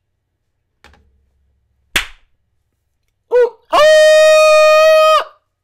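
A sharp slap or click about two seconds in, then a short rising vocal sound and a man's voice holding one loud, steady note, called through hands cupped around his mouth close to the microphone.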